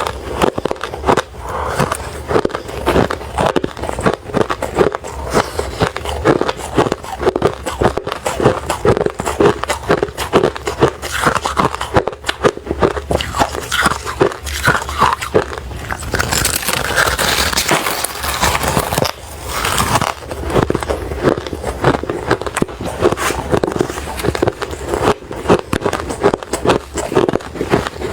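Someone chewing refrozen crushed ice and ice chips: quick, irregular crunches and crackles several times a second, with a brighter, grinding stretch about two thirds of the way through.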